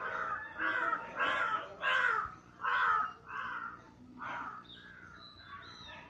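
Crows cawing: a run of harsh caws, about two a second, loudest in the first three seconds and fading to fainter calls after about four seconds.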